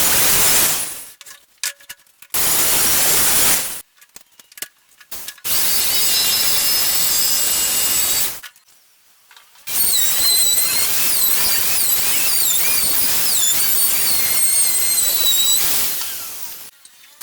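A power tool working wood in several bursts of a few seconds each, with short pauses between. The last and longest burst carries a high, wavering squeal.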